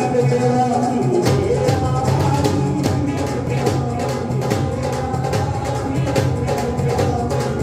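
Live Hindu devotional song: a man singing into a microphone over a dholak played in a quick, steady beat, both amplified.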